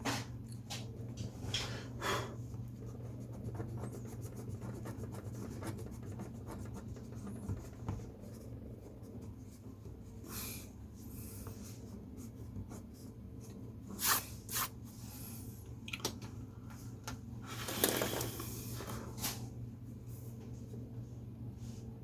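Pen drawing on paper: short scratchy strokes at irregular intervals, a few louder ones around the middle and near the end, over a steady low room hum.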